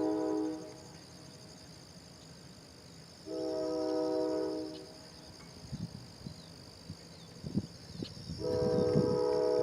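Locomotive air horn sounding a chord of several notes in separate steady blasts: one ends just after the start, a full blast of about a second and a half comes in the middle, and another begins near the end. Irregular low knocks and rumbles come in through the second half.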